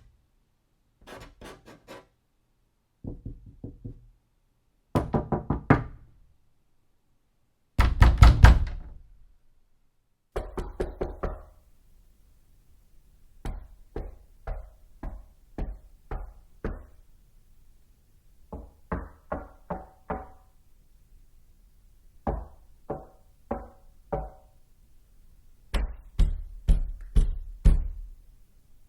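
Knocking on doors, one take after another: short series of raps, three to six knocks each, with pauses between. Some series are dull and low and some carry a short ringing tone. The loudest comes about eight seconds in, and a longer, evenly paced run of single knocks comes midway.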